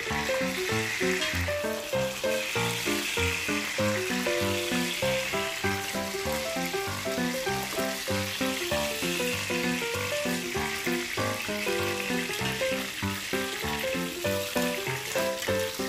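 Tambakol fish steaks sizzling steadily as they fry in hot oil in a pot. Background music with quick, regular notes plays over the sizzling.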